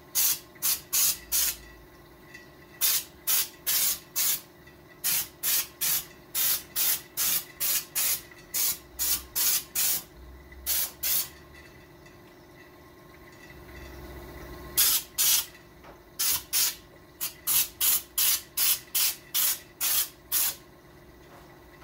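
Aerosol spray-paint can sprayed in many short hissing bursts, about two or three a second, in runs broken by short pauses and one longer pause a little past halfway.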